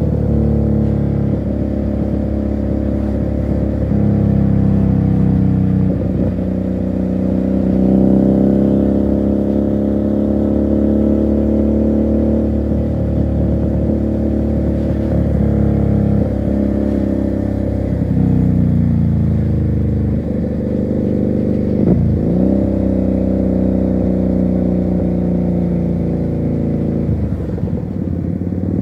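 Motorcycle engine and exhaust while riding, heard from the rider's seat, the engine note dropping and picking up again several times as the throttle is eased and reopened through gear changes.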